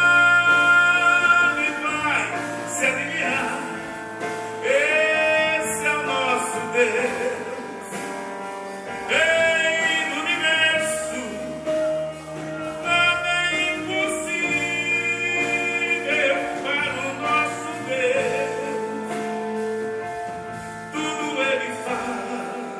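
Live gospel music from a band with electric bass, drums and keyboard, carrying a lead melody that slides and wavers in pitch in several phrases.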